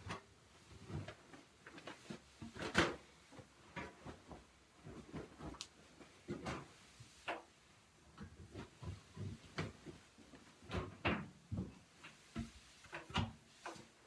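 Laundry being moved by hand from a front-load washer into the drum of a stacked LG dryer: irregular soft thumps, knocks and rustling, with a sharper knock about three seconds in.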